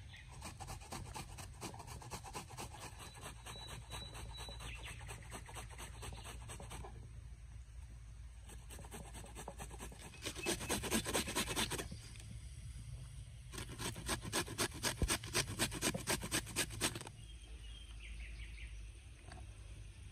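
An onion grated on a flat metal hand grater: runs of quick scraping strokes, loudest in two bursts a little before and after the middle, the second at about four strokes a second.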